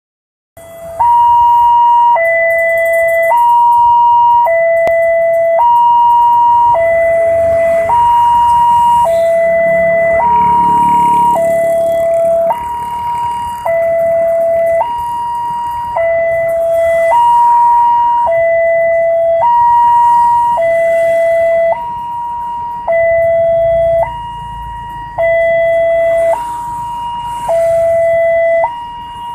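Railway level-crossing warning siren sounding its two-tone alarm: a higher and a lower tone alternate, each held about a second, over and over. It is the crossing's signal that a train is approaching.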